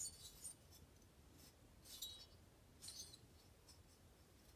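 Near silence, with a few faint light clinks and rustles of a loose chainsaw cylinder being turned over in the hand: near the start, then about two and three seconds in.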